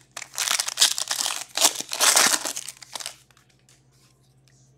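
Foil trading-card pack wrapper being torn open and crinkled, a dense crackling rustle lasting about three seconds.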